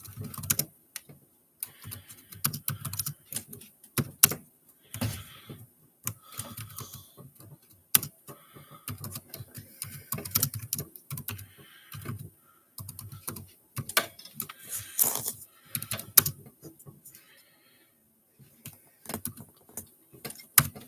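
Typing on a computer keyboard: an irregular clatter of key clicks in quick runs, with a short pause near the end.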